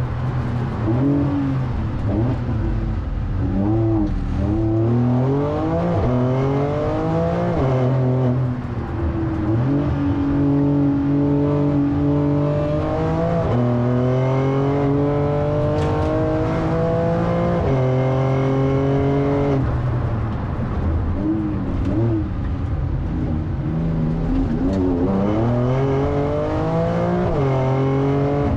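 Porsche 911 Turbo S twin-turbo flat-six heard from inside the cabin at race pace. The note climbs in pitch in repeated pulls and drops back sharply at each shift, with one long climb past the middle.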